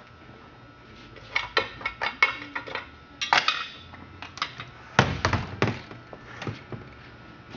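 Metal clinks and knocks, a dozen or so irregular strikes with the loudest cluster about five seconds in, from the chainsaw being handled and moved about.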